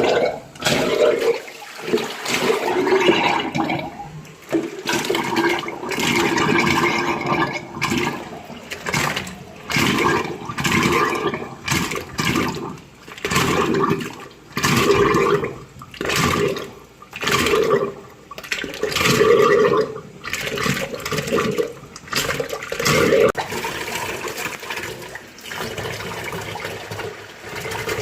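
Water gushing out of household plumbing in repeated surges, about one every second or two, as the pipes are flushed to clear calcium carbonate scale; near the end the flow steadies into a quieter rush.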